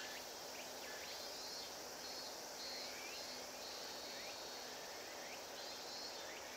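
Faint outdoor summer ambience: insects droning at a high pitch, fading out and coming back about four seconds in, with a few short rising chirps and a steady low hum underneath.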